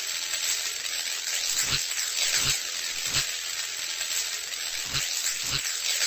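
Crackling hiss sound effect: a steady hiss broken by irregular crackles and soft low pops about once a second.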